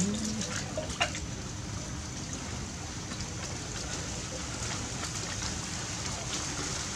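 Water sloshing and splashing in a plastic basin as a long-handled bath sponge scrubs a baby monkey sitting in it, with a few sharp clicks about a second in.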